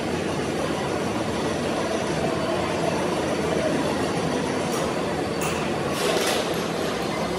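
Steady machine-shop machinery noise, with a few light metal clinks about five to six seconds in.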